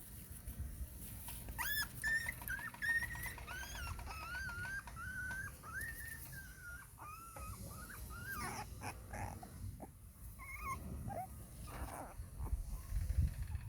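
Puppy whining: a long run of high-pitched, wavering whines, then a few shorter squeaks. A low rumble near the end.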